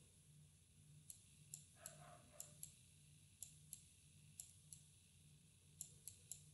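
Faint, irregular clicks of a stylus tip tapping a tablet screen while a word is handwritten, about a dozen in all.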